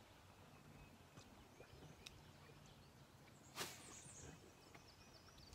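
Near silence outdoors, broken about three and a half seconds in by one brief swish as a spinning rod is cast out over the water. A few faint high chirps follow.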